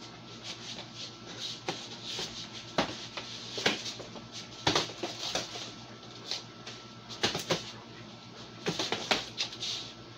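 Strikes landing during close-range hand-to-hand sparring: a dozen or so sharp slaps and thumps of punches and blocks at uneven intervals, with rustling movement between them.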